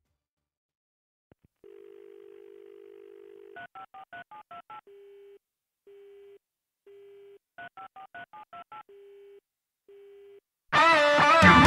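Telephone tones opening a pop-rock song. A dial tone is followed by a quick run of seven touch-tone digits, then short beeps about once a second like a busy signal. The number is dialled again and more busy beeps follow. A full band with guitars comes in near the end.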